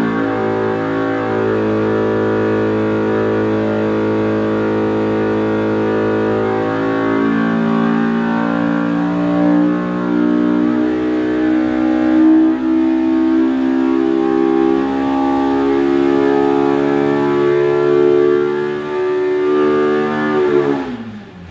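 Stock Polaris RZR Pro R 2.0-litre twin-cylinder engine running under load on an engine dyno, through its stock header and exhaust. It climbs slowly and steadily in pitch as it sweeps from about 6,500 to 8,800 rpm with the rev limit overridden. Near the end the throttle shuts and the revs fall quickly.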